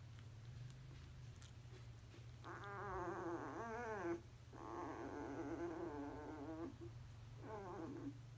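Sleeping European basset hound puppy whining in its sleep: three wavering, drawn-out whines, the middle one longest, over a steady low hum.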